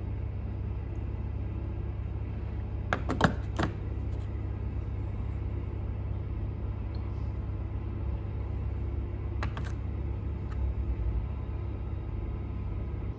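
Steady low rumble with a few sharp clicks and knocks as metal seasoning shakers and glass spice jars are picked up and set down on a shelf: a quick cluster about three seconds in, the loudest moment, and another pair about nine and a half seconds in.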